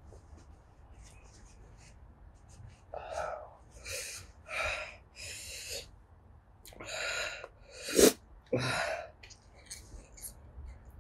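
About seven short, breathy bursts from a person's nose and mouth: nose blowing into a tissue, sniffing and sneezing, from a nose running after eating Carolina Reaper chillies. The loudest is a sharp sneeze-like burst about eight seconds in.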